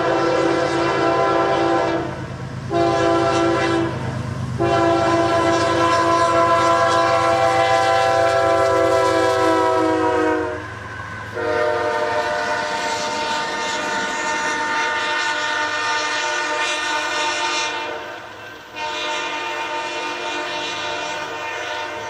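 Multi-chime air horn of a CSX GE diesel locomotive blowing a series of blasts for a grade crossing: two short ones, then long ones, broken by brief gaps. The chord drops in pitch as the locomotive passes about ten seconds in, over the engines' low rumble and the wheels clattering on the rail.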